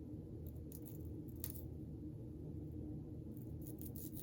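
A few faint, short cutting sounds of a blade going through wig lace, over a steady low hum.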